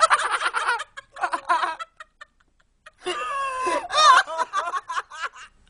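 People laughing hard with high, cackling shrieks, in two bursts with a short quiet gap of about a second between them.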